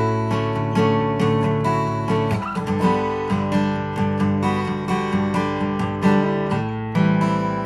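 Seagull S6 Original acoustic guitar (solid cedar top, cherry back and sides, medium phosphor bronze strings) played solo: a continuous run of picked notes and strummed chords, several a second, letting the notes ring into each other.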